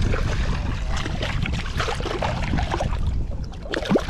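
Shallow water splashing as a hooked fish is landed by hand, the splashing sharpest near the end. Wind rumbles on the microphone throughout.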